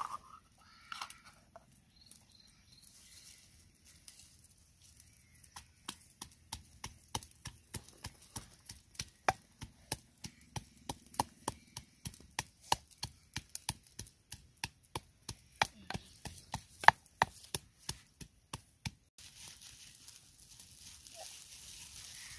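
A pestle pounding in a plastic mortar, sharp regular strokes about three a second that start several seconds in and stop a few seconds before the end. After that comes a steady hiss from a pan of water boiling over a wood fire.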